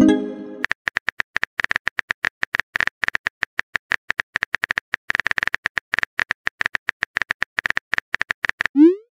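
Phone keyboard typing sound effect: rapid, irregular clicking without pause. A short chime sounds at the very start and a rising swoosh comes just before the end, the sounds of a chat message being sent.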